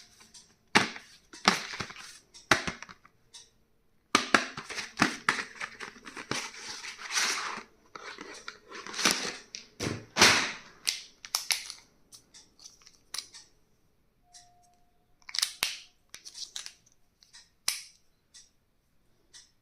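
Stationery being unboxed: packaging crinkling and tearing in short bursts, with sharp clicks and taps as items are handled.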